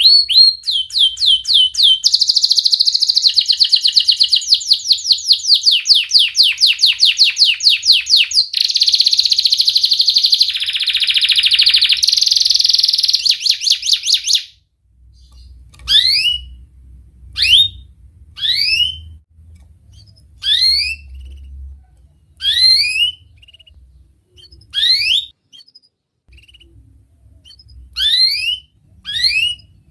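Domestic canary singing loudly: for about half the time a dense, very fast rolling trill of high sweeping notes, changing pattern every few seconds, then it stops and gives single sharp downward-sweeping 'cuit' notes every second or two.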